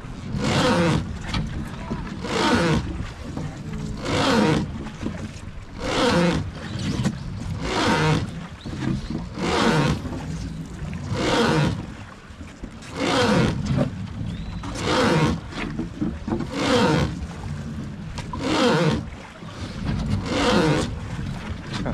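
Wooden oars of a rowed river boat creaking with each stroke, a groaning creak about every two seconds in a steady rowing rhythm.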